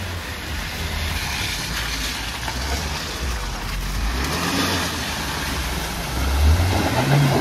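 An off-road SUV's engine labouring through mud and standing water, its revs wavering and then climbing near the end, over a steady rush of water noise.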